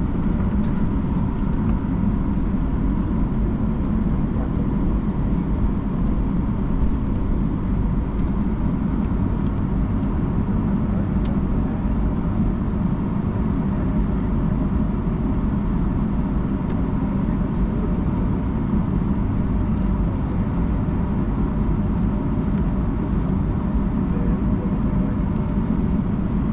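Steady low rumble inside the cabin of a Boeing 757-200 on the ground after landing, with a faint steady whine running through it.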